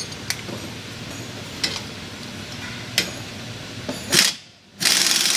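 Light metal-on-metal clicks and taps of hand tools at the front wheel hub, then about four seconds in a power wrench runs in two short bursts, the second about a second long and the loudest.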